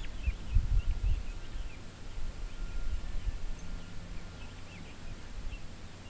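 Faint, scattered short bird chirps in the open air, with a low rumbling noise in the first second that then dies away.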